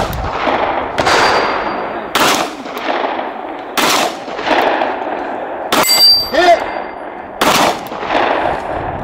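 Designated marksman rifle fired five times at an unhurried pace, roughly one shot every one and a half to two seconds. Each shot echoes away over about a second, and a brief metallic ring follows the fourth shot.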